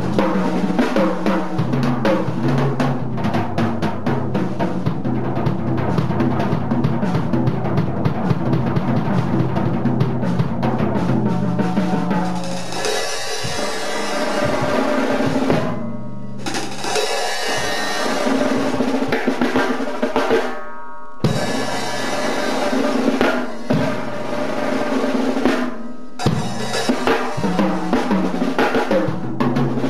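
Acoustic drum kit played hard with sticks: fast strokes and rolls across the toms, snare and bass drum, over a hardstyle electronic track. The track has a steady low synth bass at first, and bright high synths come in about halfway through, with brief breaks in the music.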